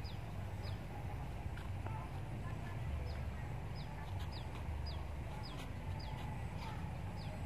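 Short high bird chirps, each dropping quickly in pitch, repeating about twice a second over a steady low rumble.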